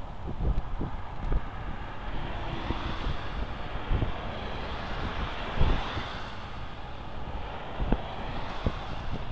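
Motor traffic passing on a multi-lane road, with wind rushing over the microphone; the noise swells as a vehicle goes by about halfway through, and a few short low thumps come through.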